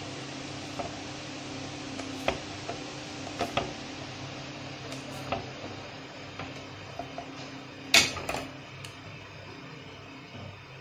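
Kitchen knife slicing a chilled cookie dough log on a plastic cutting board: a scattered series of short clicks and taps as the blade comes down on the board, with a louder knock near the end, over a steady low hum.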